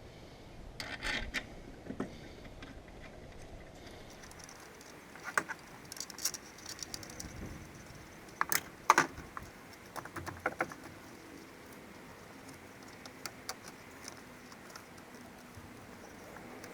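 Hand tools and metal parts clicking and clinking during work on a car alternator: scattered light clicks, the loudest pair about eight and a half to nine seconds in.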